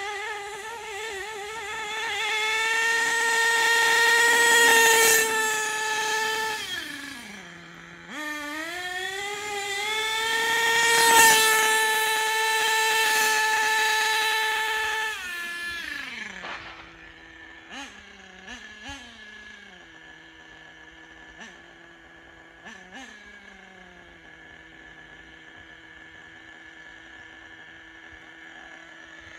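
HPI Racing Monster ATV's small nitro RC engine revving hard in two long runs, its pitch climbing and wavering, swelling loud and fading away as it passes. About halfway through it drops to a steady idle, with a few short throttle blips.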